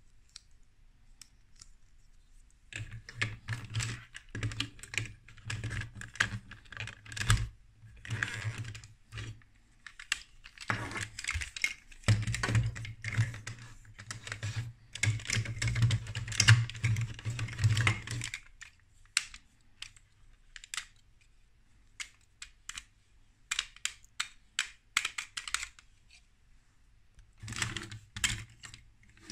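Plastic Duplo bricks clicking and rattling as they are handled and pressed together. Dense flurries of clicks fill most of the first two-thirds, then come scattered single clicks, with another flurry near the end.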